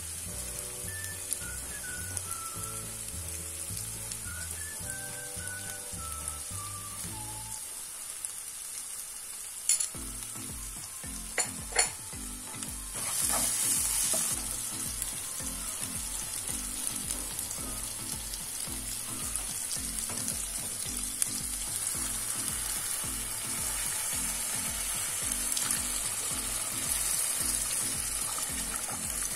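Spice paste and chopped banana blossom sizzling in a frying pan while a wooden spatula stirs and scrapes through it, with a few sharp knocks of the spatula on the pan a little before halfway. Near the end coconut milk is poured into the pan.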